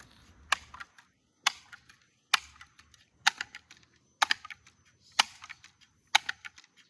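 Slow, even footsteps, about one a second, each a sharp click followed by a few smaller ones.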